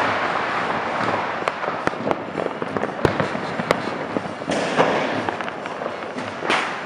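Fireworks: a continuous crackling hiss dotted with many sharp pops, with two short louder bursts, one about four and a half seconds in and one near the end.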